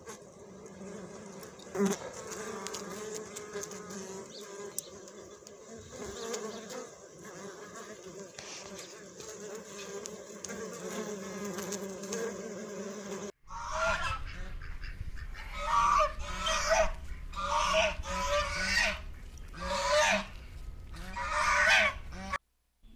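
Honeybees at the hive entrance buzzing in a steady drone, then, after a sudden cut, greylag geese honking repeatedly in short, loud calls.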